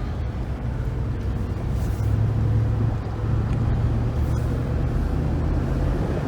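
Mercedes-Benz R129 500 SL's V8 and tyres on the move, a steady low rumble heard from inside the car, a little louder from about two seconds in.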